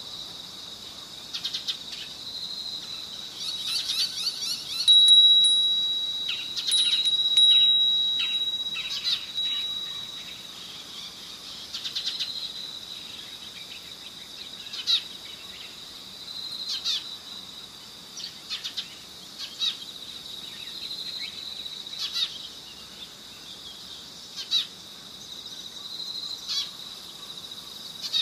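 Short high-pitched chirps every one to three seconds over a steady, high, insect-like trill that swells and fades every couple of seconds, with a clearer held high tone from about five to ten seconds in.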